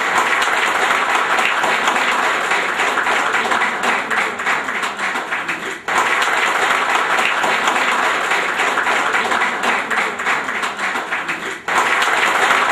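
An audience clapping steadily. The applause drops out briefly about six seconds in and again near the end.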